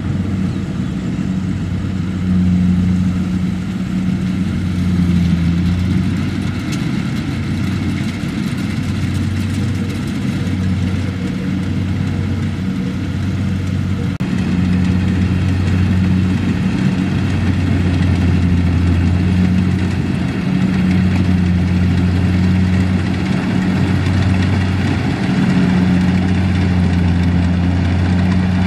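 Kubota M6040SU tractor's four-cylinder diesel engine running steadily under load, pulling a loaded trailer through mud. A deep drone that swells and dips every second or two.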